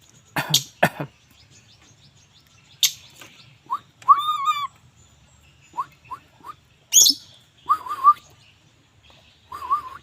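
Javan myna (jalak kebo) calling: harsh rasping notes, two close together near the start and a loud one about seven seconds in, mixed with groups of short clear whistles, some wavering.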